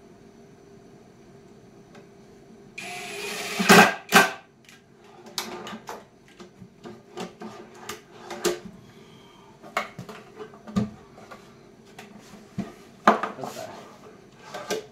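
A metal ball-bearing drawer slide and a wooden drawer box being handled. After a quiet start, a short loud rushing slide about three seconds in, then scattered metallic clicks and knocks. The loudest knock comes about thirteen seconds in.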